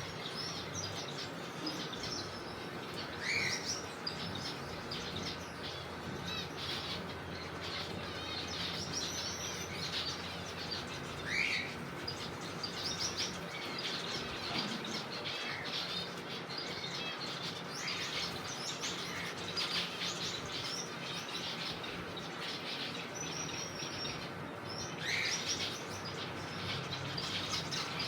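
A colony of zebra finches chirping continuously, many short overlapping calls, with a few louder rising calls standing out now and then.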